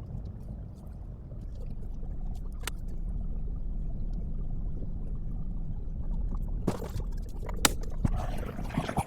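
Diesel semi-truck engine running with a low, steady rumble that grows louder about two seconds in, with a few sharp knocks near the end.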